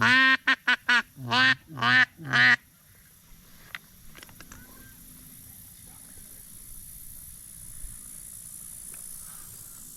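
Seven loud duck quacks in quick succession: a long one, three short ones, then three longer ones, all in the first two and a half seconds. After that there are only a few faint clicks.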